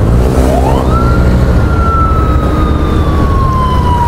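A siren wail rises quickly to a high pitch about a second in, then slowly falls. Under it is the steady low rumble of wind and the motorcycle running in traffic.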